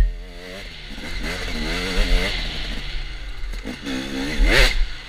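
KTM dirt bike engine revving up and down over and over as the throttle is worked on a twisty trail, with a quick rise in pitch about four and a half seconds in. A sharp knock comes right at the start.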